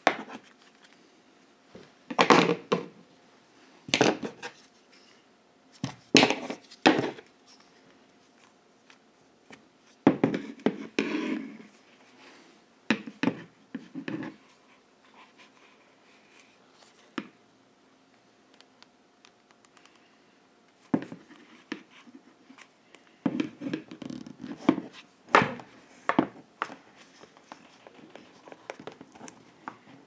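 Hands rubbing, pressing and folding leather around a plastic seat-belt buckle: irregular bouts of scratching and rustling handling noise, with short pauses between them.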